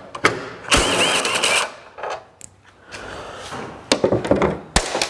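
Tools working on a car tailgate while two 12 mm bolts are taken off: scattered clicks and knocks, a harsh burst of noise about a second long near the start, and a sharp knock near the end.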